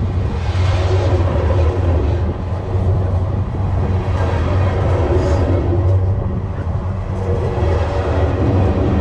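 Freight train cars rolling past at rail level, the steel wheels on the rails making a steady low hum over a continuous rumbling rush.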